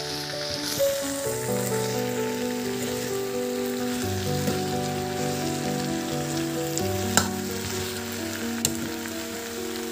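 Potatoes, tomato and leafy greens sizzling in a black wok while a metal spoon stirs them, with two sharp clinks of the spoon against the pan in the second half. Soft background music of held notes changing about once a second plays under the sizzle.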